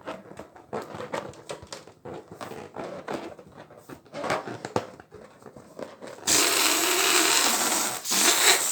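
Water balloons being popped and squeezed: a run of quick crackling pops and squishes, then from about six seconds in a loud rushing noise lasting about two seconds, a brief break, and another short loud stretch that cuts off suddenly.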